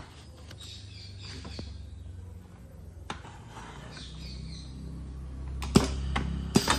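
Light plastic clicks and knocks as a plastic power strip is handled and set into a screen printer's jig, with a low hum underneath. One click about halfway through, then a quick cluster of sharper clicks near the end, while the hum grows louder over the last few seconds.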